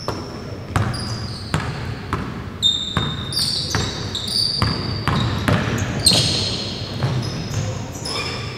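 Basketball being dribbled on a hardwood gym floor, bouncing at an uneven pace, with sneakers squeaking sharply on the court between bounces.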